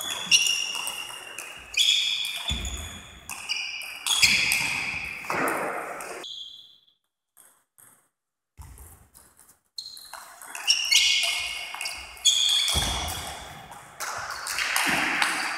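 Table tennis ball in play: quick sharp ringing pings as the celluloid/plastic ball is hit by the bats and bounces on the table, in two runs of rally separated by a couple of seconds of quiet. A few dull low thumps sound among the hits.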